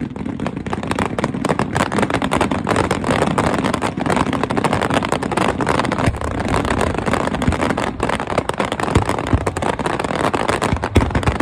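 Fireworks going off in a dense, continuous barrage of crackling and rapid bursts, with heavier booms near the end.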